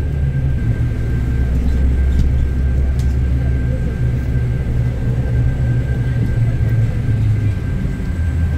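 A steady low engine rumble with a faint, steady high whine above it.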